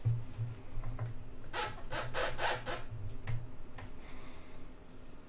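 Rubbing and scraping handling noises, a quick run of strokes about a second and a half in, over a low pulsing hum.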